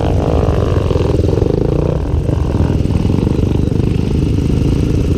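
Single-cylinder four-stroke trail motorcycle engine, a Honda Tornado bored out to 319 cc, running hard under load. Its engine speed rises and falls a few times.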